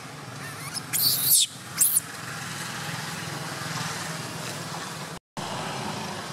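Baby long-tailed macaque crying: two short high-pitched squeals, about a second in and just before two seconds, over a steady low hum of distant traffic.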